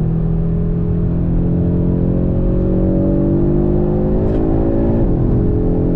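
Audi RS3's turbocharged five-cylinder engine under hard acceleration on track, its pitch climbing steadily through a gear. About five seconds in there is a brief dip at an upshift, then it pulls again.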